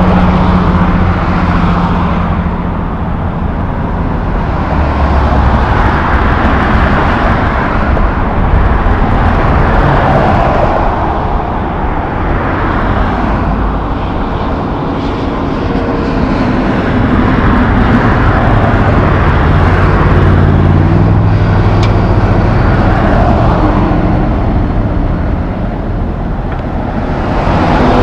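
Highway traffic passing close by: cars and trucks going by one after another, the road noise and engine hum swelling and fading with each vehicle. A truck passes loudest near the end.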